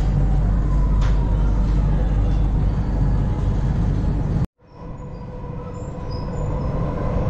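Metro train running with a steady low rumble and a faint hum. The sound cuts off abruptly about halfway through, then comes back quieter and grows louder toward the end.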